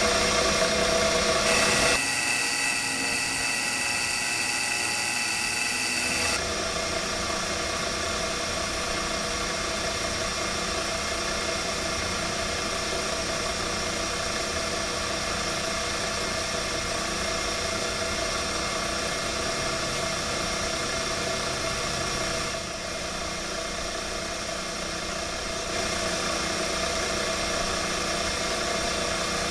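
Milling machine running steadily, its spindle cutting elongated holes in steel tubing. The tone changes for a few seconds near the start and the sound eases briefly later on.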